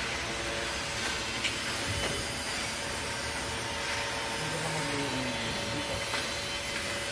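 Steady hiss of workshop background noise with a faint steady hum, broken by a few light clicks as the switchgear's disconnect-switch linkage is handled.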